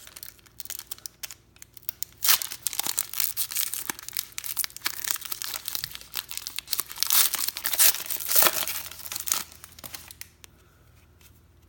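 The wrapper of a trading card pack being torn open and crinkled: a run of irregular crackling rips that dies down near the end.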